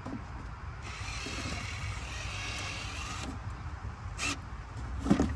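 Cordless drill running for about two and a half seconds as it bores into a plastic fixing on a car door panel, followed by a couple of short knocks.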